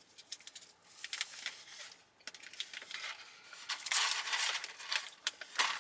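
Rustling and crinkling of takeout food packaging being handled, with small clicks and taps, loudest about four seconds in.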